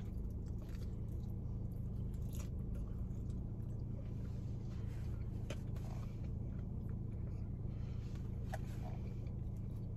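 Pizza being bitten into and chewed with the mouth closed, faint scattered wet mouth clicks over a steady low hum.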